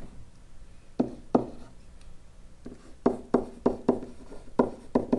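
Pen stylus tapping on a hard writing surface while handwriting: two sharp taps about a second in, then a quicker run of taps from about three seconds on as the strokes go down.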